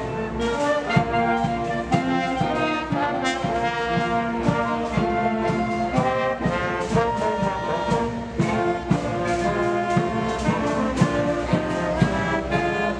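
School concert band playing: brass and woodwinds holding sustained chords over a steady drum beat.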